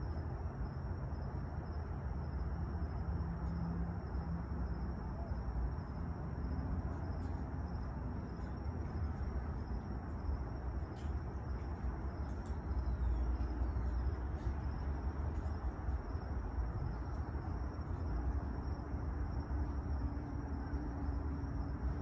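Night outdoor ambience: a steady low rumble with a thin, continuous high-pitched insect trill.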